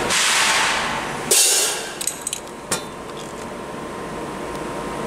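Bodor T6A fiber laser tube-cutting machine at work: steady machine noise, a short loud hiss about a second in, then a few sharp metallic clinks two to three seconds in, after which it settles to a quieter steady hum with a faint high tone.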